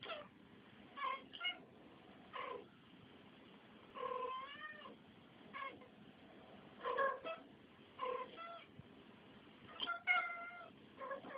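Domestic cats meowing in a string of about a dozen separate short calls, a longer meow with a wavering pitch about four seconds in and another drawn-out one near the end.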